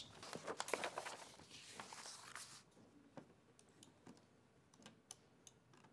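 Faint, scattered clicks of computer keyboard keys and a mouse, after a soft hiss for the first two and a half seconds.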